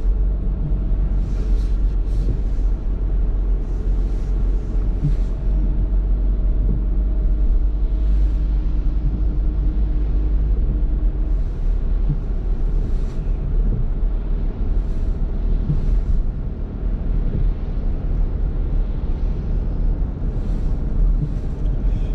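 Car interior road noise while driving on a wet road: a steady low rumble of engine and tyres, with an engine hum that fades about halfway through and faint brief swishes of spray now and then.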